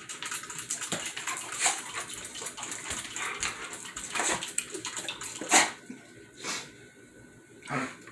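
Plastic toy water pistol squirting its stream in repeated spurts, hissing and splashing, while a German Shepherd snaps at the water with a few sharp clacks of its jaws, the loudest about five and a half seconds in.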